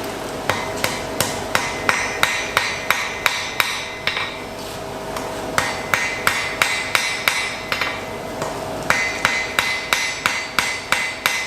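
Blacksmith's hammer striking iron on an anvil while forging an arrowhead: three runs of quick ringing blows, about three a second, with short pauses between them.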